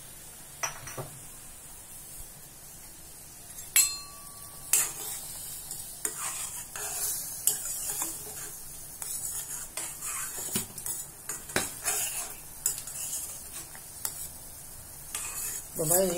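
A metal ladle stirs a bubbling potato and gram-flour gravy in a stainless steel kadai. It scrapes and clinks irregularly against the pan from about four seconds in, over a faint bubbling hiss.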